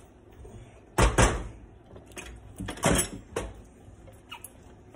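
Cookware being set down and handled: a heavy stainless steel pot holding a seasoned pork leg and a blender jar knocking on the counter and a wooden cutting board. There is a loud doubled knock about a second in, another just before three seconds, and lighter clicks in between.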